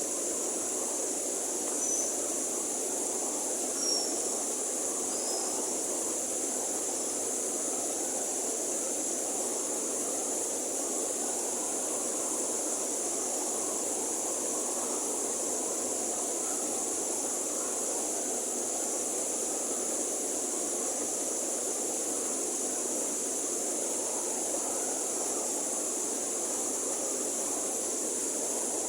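River water flowing in a steady, continuous rush, with a constant high hiss above it. A few faint, brief high chirps sound in the first few seconds.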